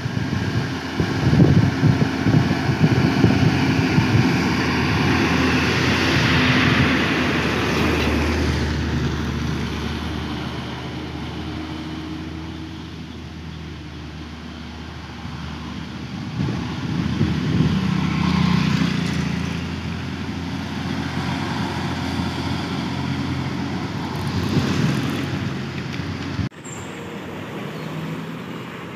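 Diesel engine of a loaded Hino cargo truck running as it comes down a steep bend and passes close, loudest over the first several seconds, then fading as it moves away. A second rise in engine sound comes around two-thirds of the way in from following traffic, and the sound breaks off abruptly near the end.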